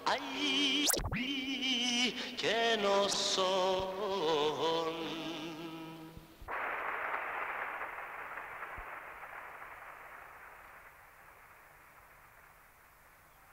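A voice singing a slow, wavering melody with strong vibrato, with a sharp click about a second in. The singing breaks off abruptly about six and a half seconds in and gives way to a steady rushing noise that slowly fades away.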